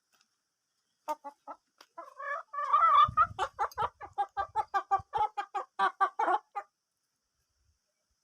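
Hen clucking: a few short clucks, a louder drawn-out call, then a quick even run of clucks at about four a second that stops a couple of seconds before the end.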